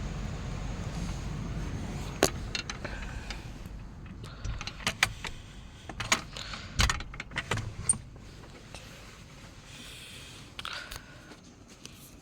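A scatter of sharp clicks and clinks, like small hard objects being handled, over a low steady rumble that fades after about four seconds.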